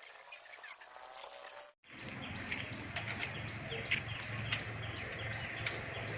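Outdoor background with bird chirps. An abrupt cut about two seconds in gives way to a steady low hum with scattered sharp clicks and short chirps.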